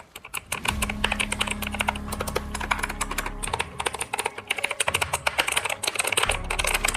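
Quantum QHM9850 mechanical keyboard's blue switches clicking as keys are pressed in quick succession, a fast, dense run of sharp clicks. A low steady hum sits underneath for part of the time.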